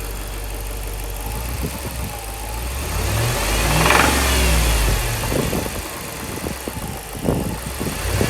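2007 Jeep Grand Cherokee SRT8's 6.1-litre Hemi V8 idling, then revved once about three seconds in, rising in pitch and falling back to idle, with a second rev starting near the end. The owner says the engine knocks only when the throttle is pressed.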